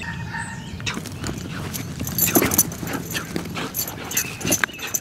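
German Shepherd scrambling and spinning on grass in play with its handler: irregular paw scuffs and thuds, with a metal chain collar jingling.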